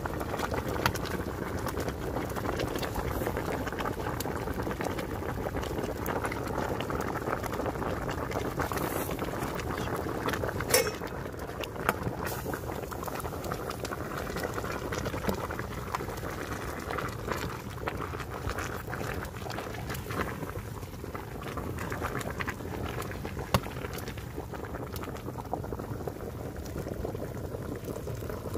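A pot of stew boiling hard over a wood fire, bubbling steadily with scattered small pops. A single sharp crack stands out about eleven seconds in, after which the bubbling is a little quieter.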